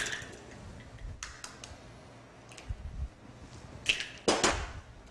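Eggs being cracked: a series of sharp taps of eggshell against a glass bowl, the loudest pair about four seconds in, with quiet handling between.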